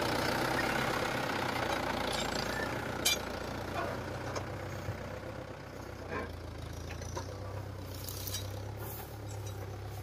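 Mahindra Yuvo 475 DI tractor's four-cylinder diesel engine running steadily as it pulls a loaded trailer, quieter after the first few seconds as it moves off. A few short sharp knocks cut through, the strongest about three seconds in.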